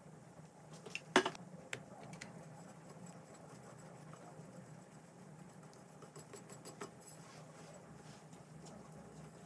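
Quiet cake-decorating sounds at double speed: a silicone pastry brush dabbing a sponge layer, then a metal spatula spreading and scraping whipped cream on a cake turntable. There is a sharp knock about a second in and scattered small clicks and taps, over a low steady hum.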